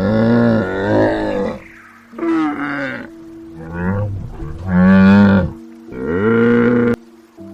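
An animal calling loudly four times, each call a wavering, quavering cry about a second long, over faint steady background tones.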